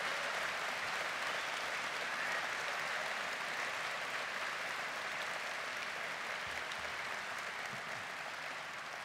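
A large audience applauding steadily, a dense sustained clapping that slowly dies down toward the end.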